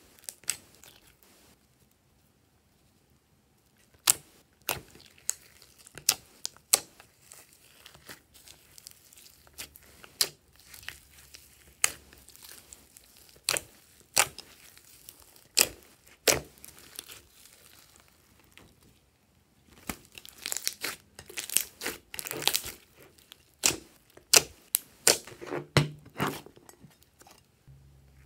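Hands squeezing and kneading glossy slime mixed with glitter and clay: sharp wet clicks and pops as trapped air bursts, with a short lull in the first few seconds and a denser crackling stretch near the end.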